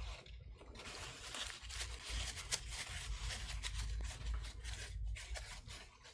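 Irregular scraping and small metallic clicks as a Master Lock padlock is worked apart by hand, its parts rubbing and ticking against the lock body.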